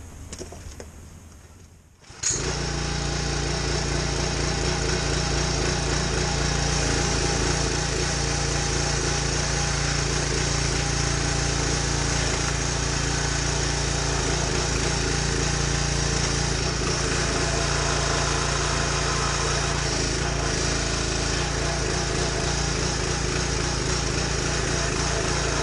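Small gas engine of a Huskee 22-ton log splitter running steadily, driving the hydraulic pump through a newly replaced engine-to-pump coupler. It comes in abruptly about two seconds in and holds an even pitch and level.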